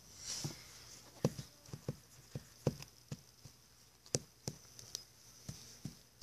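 Irregular light clicks and taps, about a dozen over several seconds, from small plastic toy horses and their tack being handled.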